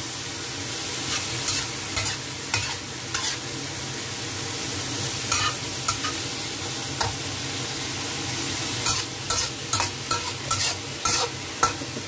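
Bean sprouts and smoked duck sizzling in a hot wok while being stir-fried, with a metal spatula scraping and clacking against the pan now and then. The scrapes come more often in the last few seconds.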